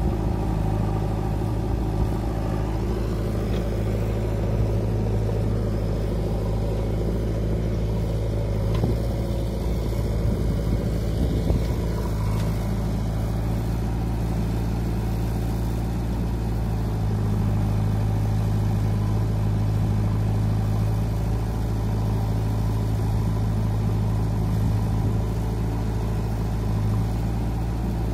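Diesel engine running steadily as a JCB 3DX backhoe loader digs and loads soil into a tractor trolley, its hum growing a little stronger for a stretch past the middle.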